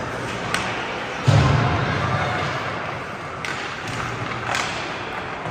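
Ice hockey rink play: a loud thud about a second in, with a low boom that dies away, typical of a hit against the boards. A few sharp clacks come before and after it.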